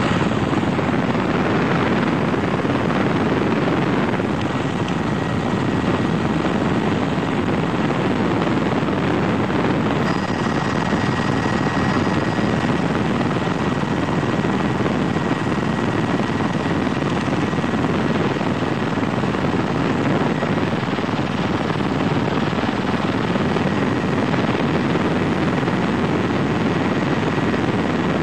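Steady, unbroken drone of an aircraft heard from on board, engine and airflow noise with a faint steady whine above it.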